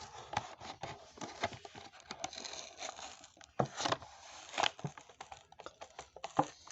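Hot Wheels blister-card packaging being torn open by hand: cardboard tearing and the plastic blister crinkling, with irregular snaps and clicks, a few of them louder.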